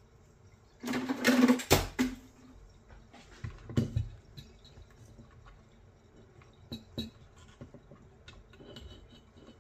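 A metal helping-hands stand on its base plate is set down on a wooden workbench about a second in, with a scrape and a couple of knocks. Quieter knocks and small clicks follow as it and its clip are handled.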